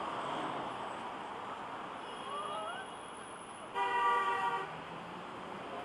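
A car horn sounds once in a single short blast of under a second, past the middle, over steady city traffic noise.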